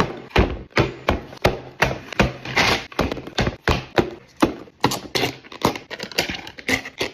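Takeaway food containers being handled and set down on a hard surface: a quick, uneven run of sharp taps and knocks, about two or three a second.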